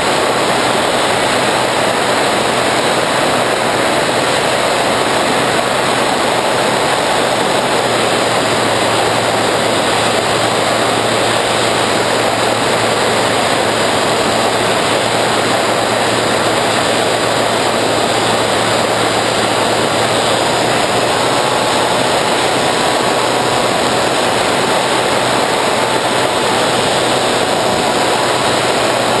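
Bixler 3 foam RC plane in flight, heard from its onboard camera: steady wind rush over the camera mixed with the drone of its electric pusher motor and propeller.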